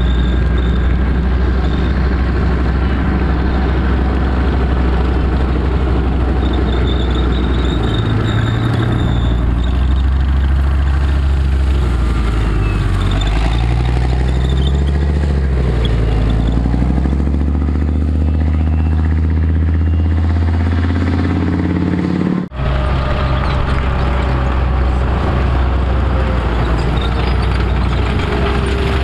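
Military vehicle engine running loud and steady. In the middle its pitch rises and falls several times as it revs. After a brief break about two-thirds through, the engine runs steadily again under a slowly falling whine.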